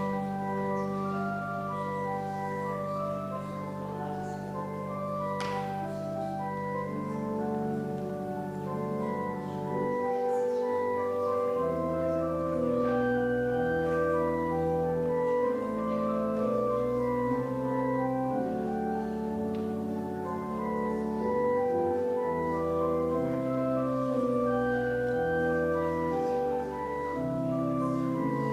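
Church organ playing a slow piece of sustained chords, over a long held bass note that gives way to moving bass notes about ten seconds in.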